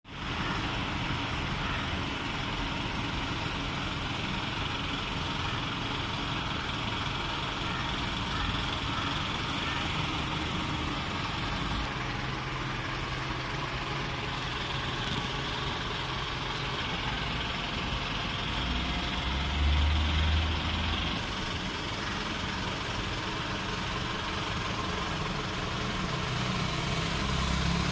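Outdoor street ambience of motor traffic: a steady mix of vehicle engines, with a louder low rumble swelling for a couple of seconds about two-thirds of the way through.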